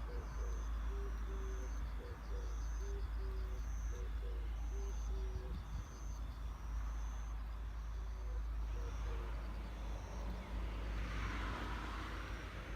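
Electric-bell level-crossing warning bells ringing, the bells on the two sides striking at noticeably different rates so their strikes fall out of step with each other. A road vehicle passes near the end.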